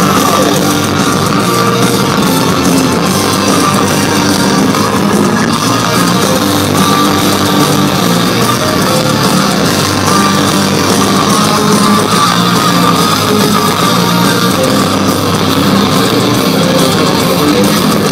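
Heavy metal band playing live, with distorted electric guitars to the fore, loud and steady, recorded from within the crowd.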